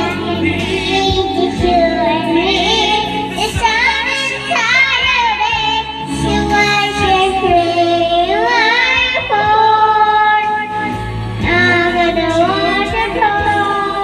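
Young girl singing into a karaoke microphone over backing music, holding long notes that waver.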